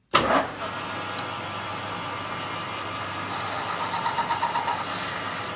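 Lathe turning 316 stainless steel hollow bar at 440 RPM while a boring bar roughs out the bore, 1 mm a pass on an aggressive feed. The steady machining noise starts suddenly at the very beginning.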